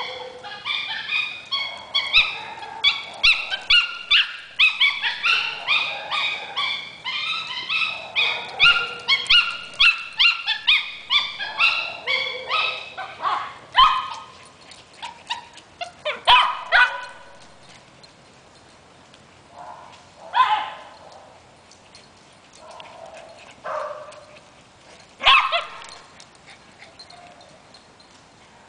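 Maltese dog yelping excitedly in play as it chases another dog. It makes rapid, high-pitched, monkey-like chattering yelps, several a second, for roughly the first half, then a few louder single yelps several seconds apart.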